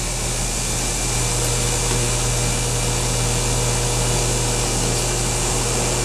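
Central air conditioner's outdoor condensing unit running steadily, a low hum under an even rushing noise, with a faint steady tone joining about a second in. The system is settling back down after restarting.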